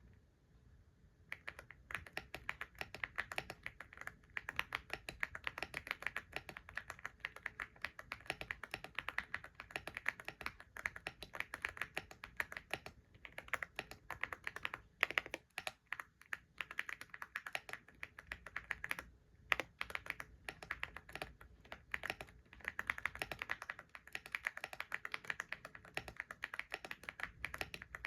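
Typing on a computer keyboard: rapid, continuous keystroke clicks that start about a second in, with a few brief pauses.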